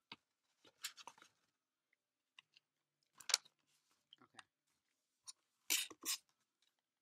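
A few scattered short clicks and brief rustles of a device being handled and clicked.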